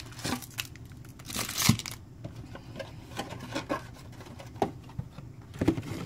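Cardboard trading-card booster box being torn open along its perforated lid and folded back into a display: a sharp tearing rip about a second and a half in, then scattered rustles and light taps of cardboard being handled.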